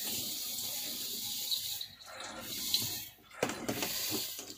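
Handheld shower head spraying water over a wet rabbit in a bathtub: a steady hiss of running water that briefly drops away twice.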